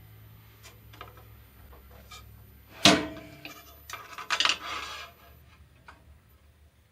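A metal part knocking against the bandsaw's metal table with a single ringing clank about three seconds in, then metal scraping and clattering on the table for a second or so, with a few lighter taps around it.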